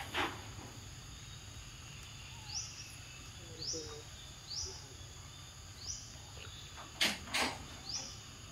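Outdoor ambience with a short, high, rising chirp from a small animal, repeated about once a second over a low steady rumble. Two short, sharp, louder sounds come close together about seven seconds in.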